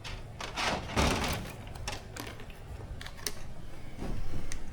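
Rustling and light clicking of small parts being handled during model-plane assembly: a rustle about half a second in, then scattered sharp clicks.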